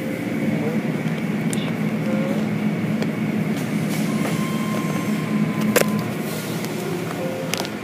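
Automatic car wash heard from inside the car: a steady low rumble of water and foam spraying while the wash's cloth strips and brushes work over the body, with a sharp knock about six seconds in.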